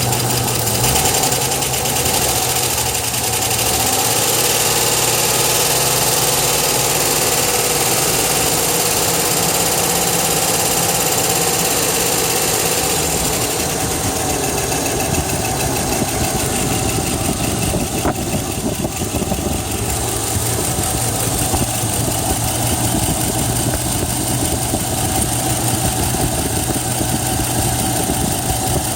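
2002 Chevrolet Tahoe's 5.3 L V8 running steadily at idle from a cold start, making the noise the owner hears only when the engine is cold and cannot yet identify; the owner's tags point to low oil pressure.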